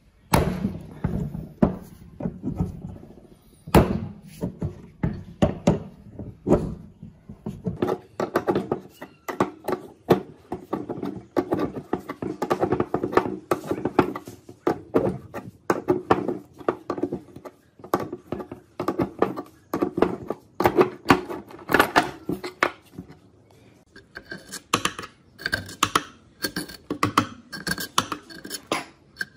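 Irregular knocks, taps and clinks of hand work on metal meat-grinder parts. There are heavier thumps in the first few seconds, and sharper, brighter metallic clinks near the end.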